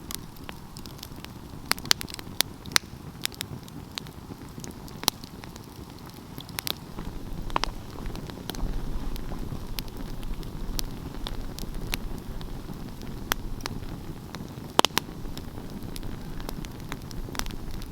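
Wood fire crackling: irregular sharp pops and snaps over a steady low rumble of burning flames, which grows a little louder partway through.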